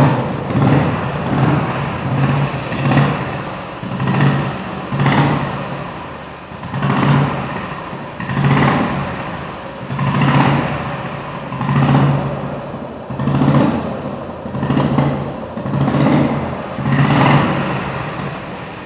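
1998 Royal Enfield Bullet Standard 500cc single-cylinder engine starting and then being revved in repeated throttle blips, about one every second and a half. Under the thump it carries a light rattling noise that the dealer says every 500cc Bullet makes and is not a fault.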